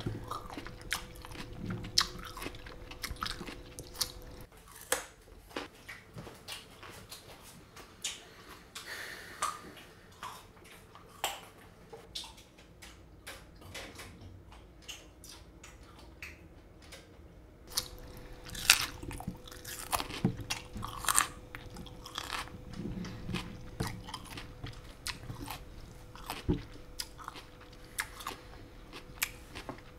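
A person chewing crunchy cereal loudly with the mouth open: irregular crunches and wet smacking.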